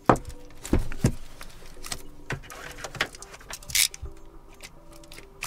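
A cardboard keyboard box being handled and opened: a series of light knocks and clicks, with a brief sliding scrape about four seconds in.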